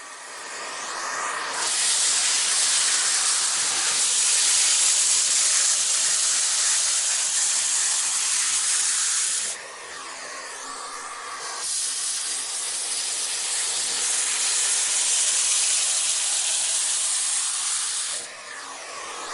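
Vacuum cleaner running: a loud, steady rushing hiss of suction airflow, which drops briefly about halfway through and again near the end before swelling back.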